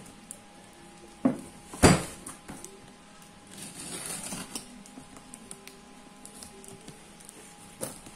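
A tape-wrapped cardboard parcel being handled and cut open: two sharp knocks close together about two seconds in, then a rustle of tape and cardboard, with small clicks and scrapes.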